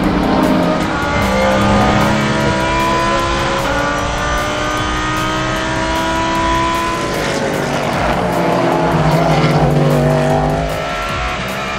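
Endurance race car engines running at speed on track. The engine note climbs steadily over several seconds, broken by a few steps in pitch, and a second steady engine note comes in near the end.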